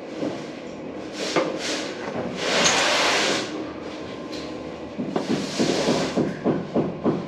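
Building and plumbing work: a string of knocks and clatters, with two longer noisy bursts of about a second each, the first about two and a half seconds in and the second about five seconds in.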